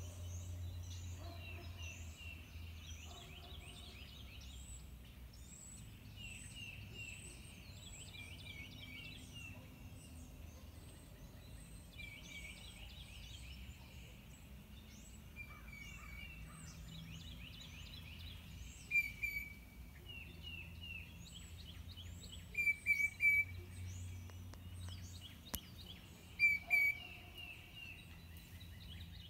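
Several birds singing and calling at once: runs of short repeated chirps and trills with thin down-slurred whistles, a few louder, sharper calls in the second half, over a low steady background hum.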